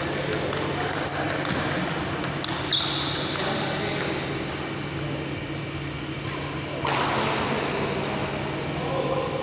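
Table tennis ball knocking off bats and table during a rally: a sharp click about a second in and a sharper knock with a short high ringing ping near three seconds, then fainter ticks, over a steady low hum in a large hall.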